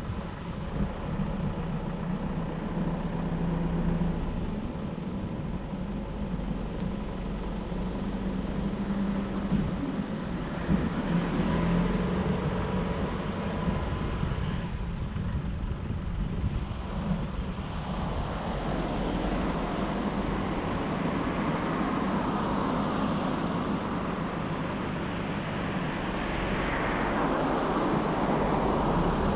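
A vehicle on the move: steady engine hum under tyre and wind noise. The noise grows stronger in the second half as the road opens up.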